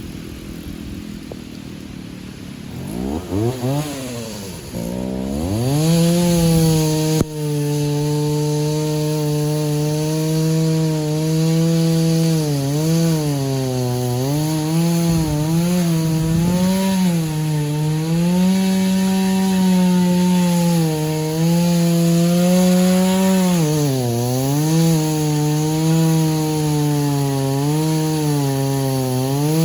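Antique two-stroke chainsaw revving up a few seconds in, then held at high throttle while cutting wood, its pitch sagging and recovering again and again as the chain bogs under load.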